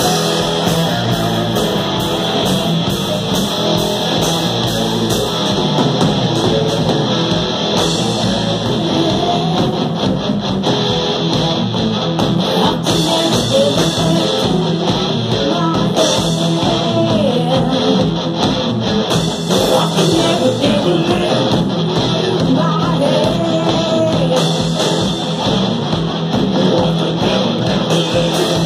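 Live rock band playing loud: electric guitars and a drum kit, with a woman singing into a microphone over them.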